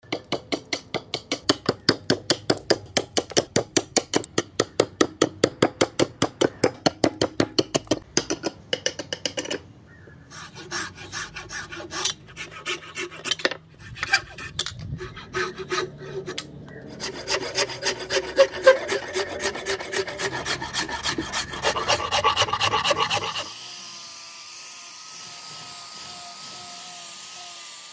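Hand-shaping a hardwood axe handle: fast, even rasping strokes on the wood, about four to five a second, then slower, uneven hand-saw strokes through the blank. About three quarters of the way in, these give way to the steady hum and wavering whine of an angle grinder with a sanding pad running against the wood.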